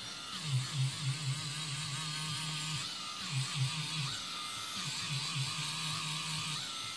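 Small rotary-tool motor spinning a leather disc charged with 5/3 diamond paste against amethyst while polishing. It gives a steady whine whose pitch wavers slightly, and a low throbbing comes in short runs of several pulses a second.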